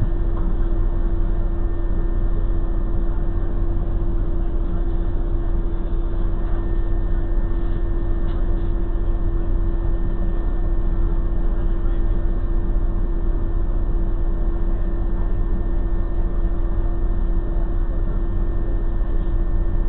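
Steady engine hum at idle, unchanging, with a strong low drone, heard from inside a vehicle standing still in traffic.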